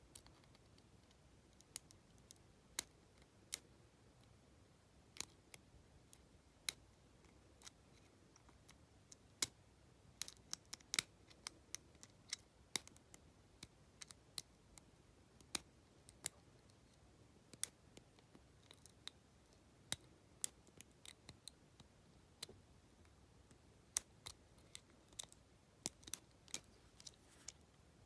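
Lock pick and tension wrench working inside the keyway of an Abus T65AL/40 My Love padlock: faint, irregular small metallic clicks and ticks, sometimes several in quick succession, as the pick snags on the warding and the pins drop back.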